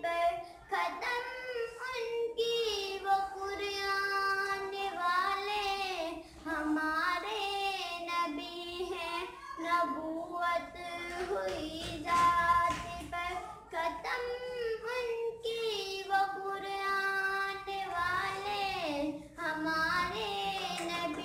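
A young girl singing solo, holding long notes that waver and slide between pitches, with short breaks between phrases.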